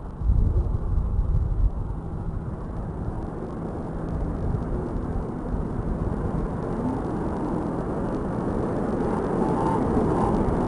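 Wind buffeting a phone's microphone, a rumbling noise that is heaviest and most uneven in the first two seconds, then steadier and slowly louder.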